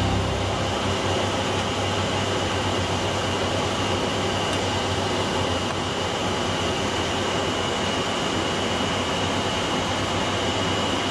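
Steady in-flight cockpit noise of an ATR 72 turboprop airliner: a low drone from the engines and propellers under rushing airflow, with a thin high-pitched whine held on top.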